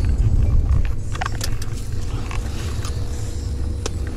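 Car running, heard from inside the cabin as a steady low rumble, with scattered light clicks and rustling of handling in the seat.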